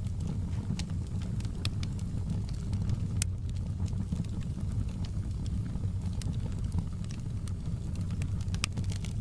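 Wood fire burning in a fireplace: a steady low rumble of flames with scattered sharp crackles and pops, one louder pop about three seconds in.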